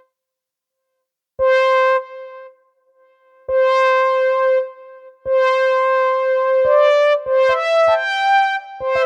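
Software synthesizer patch in Arturia Analog Lab V: one bright note held about a second, played three times with a sharp click at each attack, then a quick run of rising notes near the end.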